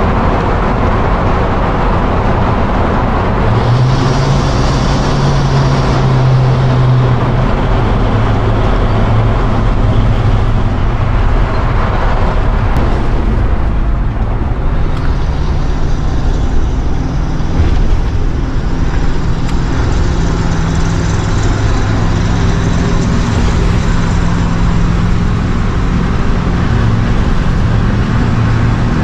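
Cab of a 1989 Winnebago Superchief motorhome at freeway speed: its 7.4 L Chevy 454 big-block V8 running steadily under a constant din of road and wind noise.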